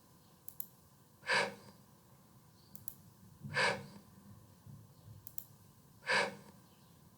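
A person saying the voiceless /f/ sound (upper teeth on lower lip, air blown out without voice) three times, each a short hiss a little under half a second long, about two seconds apart.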